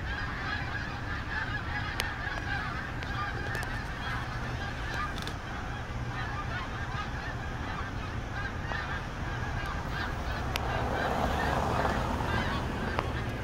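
A large flock of snow geese calling as it flies overhead: a dense, continuous chorus of many overlapping honks that swells slightly near the end.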